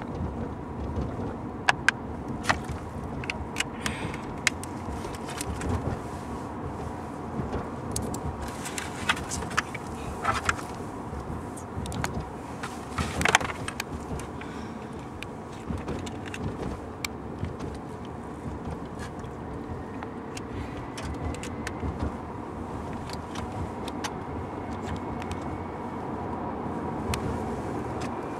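Steady road and engine noise inside a moving car, with scattered light clicks and knocks through the first half.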